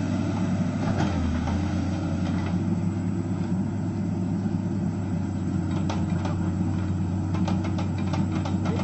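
Excavator engine running steadily, a continuous low drone. About two-thirds of the way in a run of short sharp clicks and knocks joins it.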